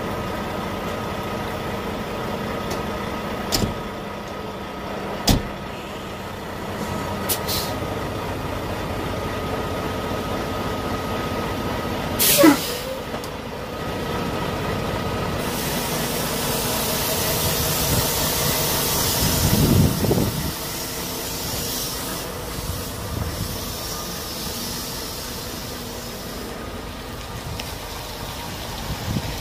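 Volvo VNL 860 semi-truck running at idle. Two sharp knocks come a few seconds in as the cab door shuts, and a brief falling whistle sounds midway. Then a long air hiss as the brakes release, and the engine pulls the truck and its trailer away.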